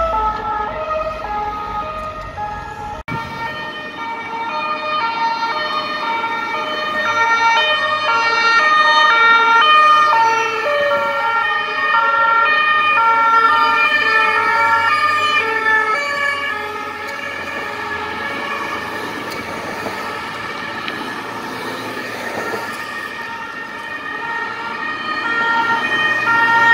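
French two-tone emergency sirens alternating between two pitches: first a private ambulance's siren, then, after a cut about 3 s in, police vans' sirens with more than one siren sounding out of step. The sirens swell louder about eight to ten seconds in and again near the end as the vans come close.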